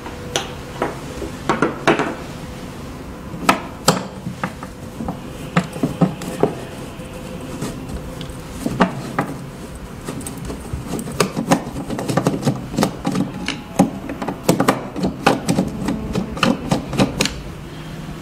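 A screwdriver clicking, knocking and scraping against the metal heating plate of a 3D sublimation vacuum machine while the last screw is worked out from under the logo. The clicks come irregularly, some of them sharp.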